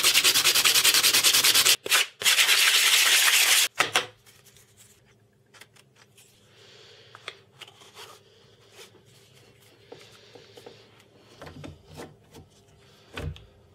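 A birch-plywood adapter ring rubbed back and forth by hand on a sheet of coarse P60 sandpaper laid flat, to take material off its flange so it sits flat. The rasping comes in rapid strokes, in two runs with a short break near two seconds, and stops about four seconds in, leaving only faint clicks and knocks of handling.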